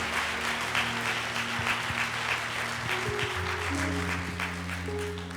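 Congregation applauding, with sustained musical chords held underneath that shift pitch a few times; the clapping thins out near the end.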